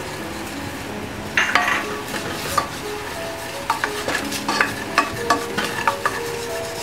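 Wooden spoon stirring a butter-and-flour roux cooking in a stainless steel saucepan: a steady sizzle with irregular scrapes and taps of the spoon against the pan.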